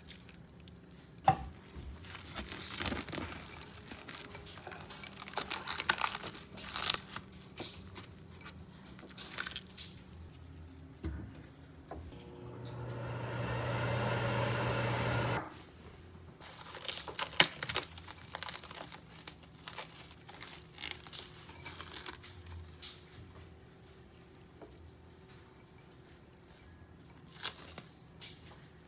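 Plastic cling wrap crinkling and tearing as it is stretched over a bowl. Then a microwave oven runs with a steady hum for about three seconds and cuts off suddenly. After that comes scattered scraping and clicking of a silicone spatula stirring steamed mung beans in a ceramic bowl.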